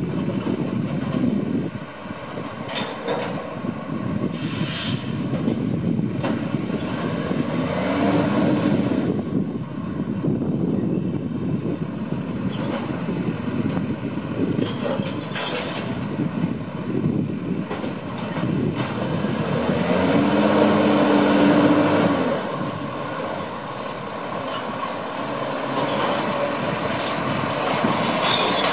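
Iveco side-loader recycling truck at work: its diesel engine runs steadily and swells twice as the hydraulic arm lifts, empties and lowers a wheelie bin. A short sharp air hiss from the air brakes comes about five seconds in, with a few clanks and clicks from the arm and bin later on.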